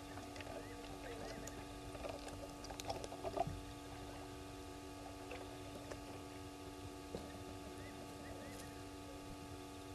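Night ambience at a bush waterhole: a steady droning background with a few faint short chirps. A brief cluster of clicks and knocks about three seconds in is the loudest moment.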